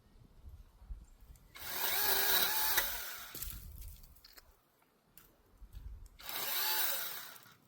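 Seesii cordless battery mini chainsaw cutting through branches twice, each cut a burst of about a second and a half with the motor whine wavering under load.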